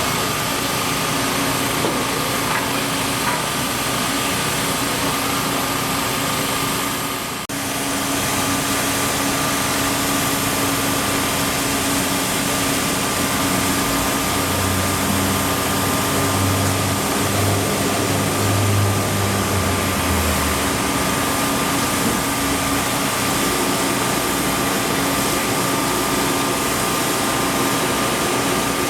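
Steady engine or machinery noise with a constant whine, and a deeper engine hum joining for several seconds about halfway through.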